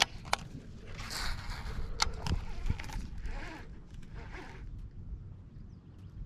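Baitcasting reel being cranked in short spells, a zipper-like whirring rasp, with a few sharp clicks near the start and about two seconds in.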